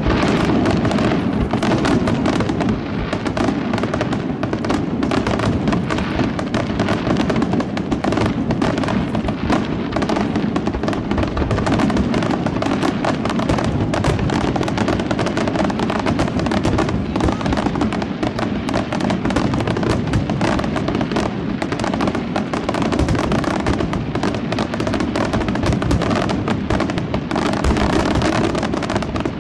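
Aerial fireworks display: a dense, unbroken barrage of rapid bangs and crackling, with no gap between bursts.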